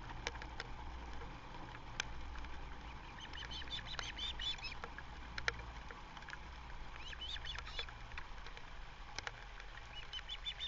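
Ospreys giving short bursts of rapid, high chirping calls, three times: about three seconds in, about seven seconds in, and again near the end. A few sharp clicks and a low steady rumble run underneath.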